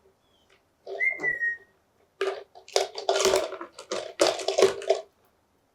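A parrot whistles once, a short clear note that falls slightly. Then for about three seconds a parrot's beak gnaws and clicks at the plastic Parmesan bottle and its lid, a rapid run of crackling clicks.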